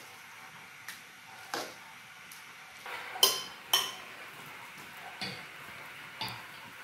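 Metal cooking pots and a bowl knocking and clinking as they are handled: about six sharp clinks, the loudest two a little past the middle, ringing briefly.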